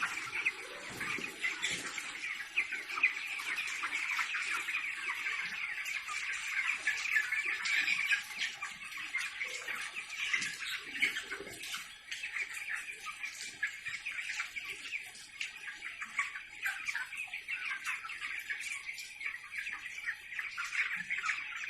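A large flock of chickens calling all at once: a dense, steady chatter of many overlapping calls.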